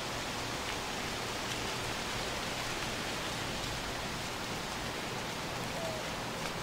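Steady, even hiss like falling rain, with no speech or music.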